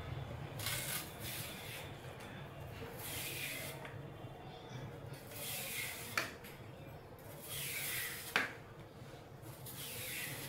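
Giant taro stalk having its fibrous skin stripped off by hand: five rasping, tearing swishes about two seconds apart, with two sharp snaps of the stalk about six and eight seconds in.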